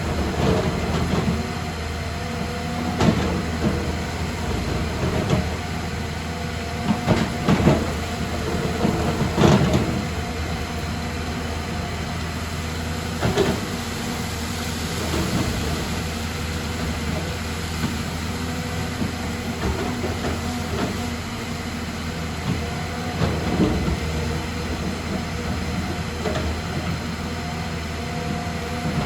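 Excavator's diesel engine running steadily under load, with several sharp knocks from the machine working, the loudest about a third of the way in.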